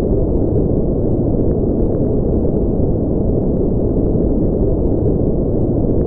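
Steady, even spaceship-ambience noise: a deep, muffled rushing rumble with no highs and no changes or separate events.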